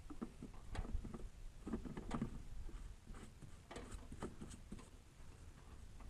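Faint, irregular knocks and clicks of objects being handled, spaced unevenly across several seconds.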